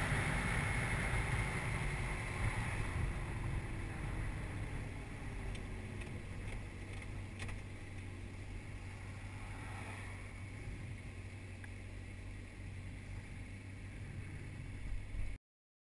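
Wind buffeting and engine rumble on a motorcycle-mounted camera at road speed, growing gradually quieter as the bike slows. The sound cuts off suddenly near the end.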